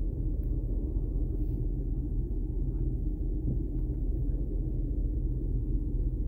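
Steady low rumble inside a stationary car's cabin.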